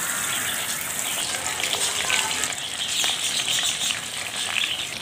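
Masala-coated prawns deep-frying in a kadai of hot oil, the oil sizzling and crackling steadily as more pieces are dropped in by hand.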